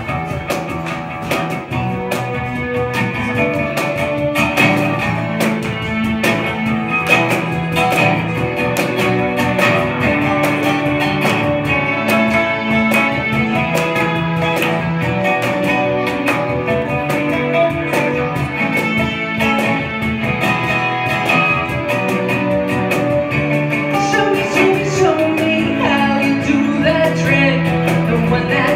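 Live band playing a song: guitar and keyboard with a cajon keeping a steady beat, and a woman singing.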